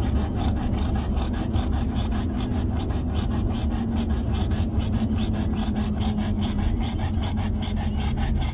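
A dog panting hard with its mouth wide open, quick even breaths at several a second, over the steady low rumble of a moving car's interior.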